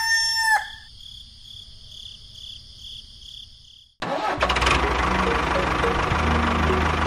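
A rooster crow ends in the first half second, followed by faint high chirping. About four seconds in, a tractor engine starts abruptly and runs steadily with a low hum.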